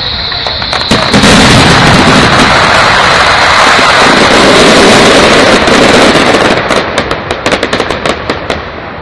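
Fireworks going off in a dense barrage, bursts merging into one continuous loud crackle, then a rapid string of sharp cracks near the end that dies away.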